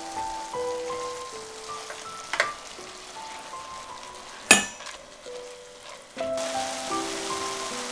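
Buckwheat, shallots and oyster mushrooms sizzling in a stainless steel pan while a spatula stirs them, with a few sharp scrapes and knocks of the spatula on the pan, the loudest about four and a half seconds in. A louder, even hiss sets in abruptly about six seconds in, and soft background music plays throughout.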